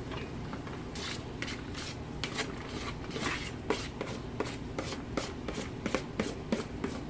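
Chopped celery, bell pepper and onion going into a hot roux in a Dutch oven and being stirred in. The utensil scrapes and knocks against the pot in quick, irregular strokes.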